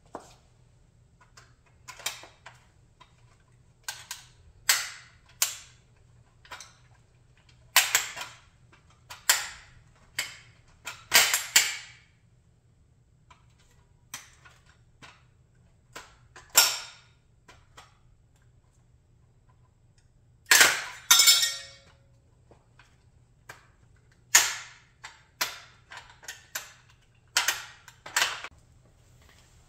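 High-heeled sandals stamping on a model Chrysler 300B car on a concrete floor: a long, uneven series of sharp cracks and clatters as the body gives way and parts snap off. The loudest is a quick double crack about twenty-one seconds in.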